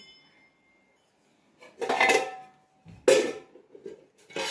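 Stainless steel dishes clinking and clattering: three short knocks of steel on steel about a second apart, with a brief metallic ring.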